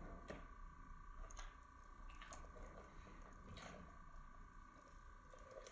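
Faint eating sounds of chicken wings being bitten and chewed: a handful of soft smacks and clicks over a steady faint tone, close to near silence.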